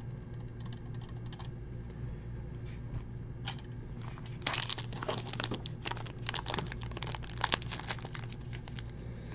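Foil trading-card pack wrapper crinkling as it is picked up and torn open, starting about halfway through, over a low steady hum.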